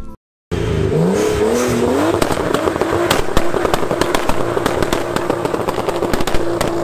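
Nissan 240SX S14 engine revving up and then held at high revs while the car spins donuts, with rapid sharp crackles throughout. It starts suddenly about half a second in.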